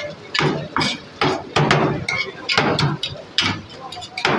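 Metal utensils chopping and scraping shaved shawarma chicken on a steel tray: quick, irregular metallic clacks, about three a second.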